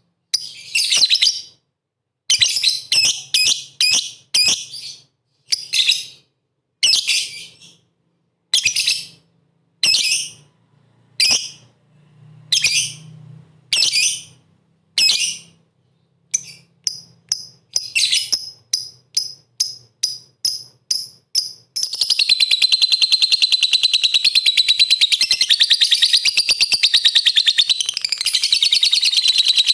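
A lovebird in full song: shrill chirps in separate bursts, coming faster after about sixteen seconds and running together into a continuous rapid chattering trill from about twenty-two seconds in.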